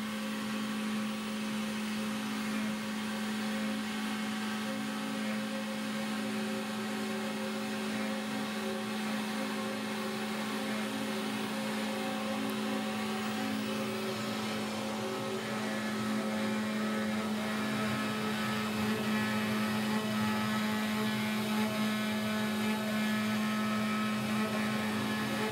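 CNC router milling wood: a steady machine hum with one constant tone while the spindle's bit cuts a carved profile into a board. It grows a little louder in the second half.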